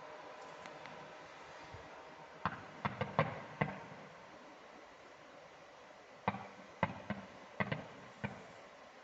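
Fireworks going off: sharp bangs, each with a short echo, in two groups of about four, the first around two and a half to three and a half seconds in and the second over the last three seconds.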